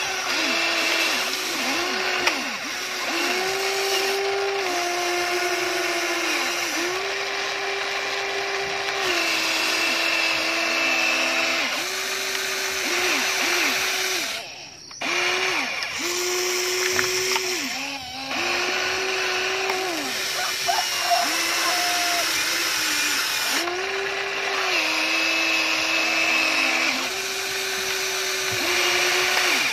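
Electric motors of a remote-control toy excavator whining as its boom, arm and bucket move, the pitch stepping up and dipping each time a motion starts or stops.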